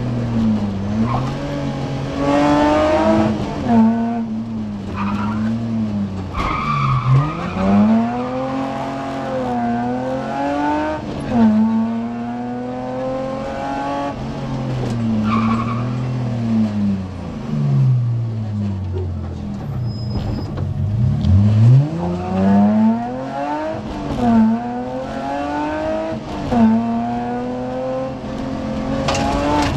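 BMW E30 rally car's engine heard from inside the cockpit at full stage pace, its pitch climbing repeatedly under acceleration and falling away on lifts and gearchanges, with two deep drops as the car slows for corners.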